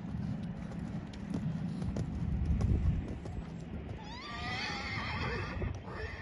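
A horse whinnying: one quavering call of about two seconds, starting about four seconds in. Under it, the muffled hoofbeats of a horse trotting on arena sand.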